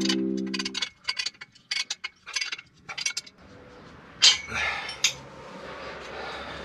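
Short metallic clinks and taps of tools and exhaust parts while a 2-into-1 exhaust header is fitted to a Harley-Davidson, with two sharper knocks about four and five seconds in. Background music stops about a second in.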